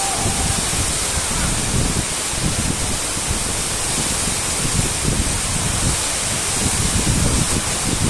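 A tall waterfall crashing steadily into its plunge pool: a constant, even rushing of falling water. Wind buffets the microphone with uneven low rumbles underneath.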